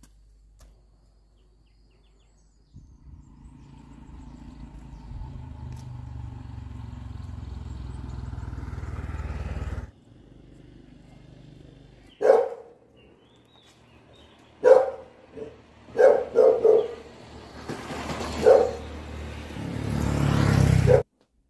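An engine hum grows steadily louder for several seconds and breaks off; then a dog barks about six times, a few at a time, and a motorbike passes close by near the end, getting louder until the sound cuts off suddenly.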